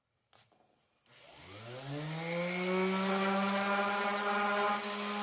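Porter-Cable random orbit sander starting up about a second in, its whine rising in pitch and then running steadily, with a hiss as the pad sands dried spot putty off a primed plywood box.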